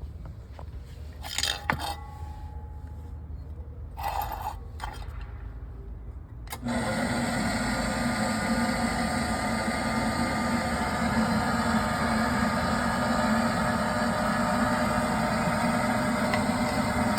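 A few light clinks and scrapes, then about six and a half seconds in the Matsumoto Kikai PS-1F-5 welding positioner's electric drive starts and runs steadily with a low motor hum.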